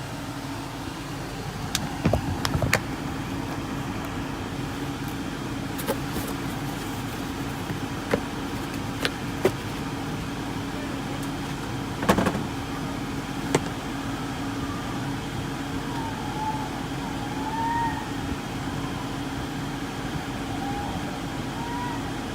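Freshly replaced rear HVAC blower motor of a 2013 GMC Yukon running with a steady hum, working again after the old blower died. Over it come several sharp plastic clicks and knocks as interior trim panels are pressed back into place.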